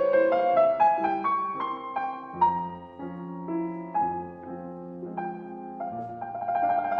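Background music led by a piano, single notes and chords changing every half second or so.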